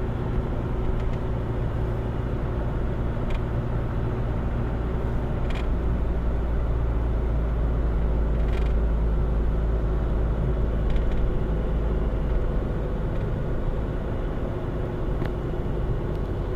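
Astra B194's engine running steadily, now that the burnt starter has been replaced and it starts again. There are a few faint clicks.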